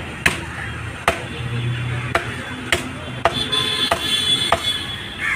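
Meat cleaver chopping pork on a round wooden chopping block: about seven sharp chops, a little under a second apart.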